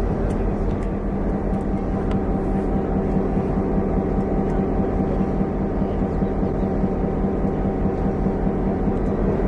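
Diesel locomotive idling at standstill, a steady unchanging drone with a low hum.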